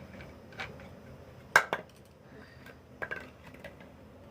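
Sharp clinks and knocks of tableware being handled on a hard surface: a loud double clink about a second and a half in, another pair about three seconds in, and a softer one before them.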